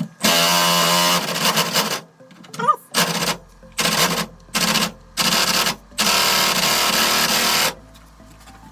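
A power wrench run in a series of trigger bursts on a body-to-chassis bolt: a burst of nearly two seconds, then four short bursts, then a final burst of nearly two seconds that stops sharply.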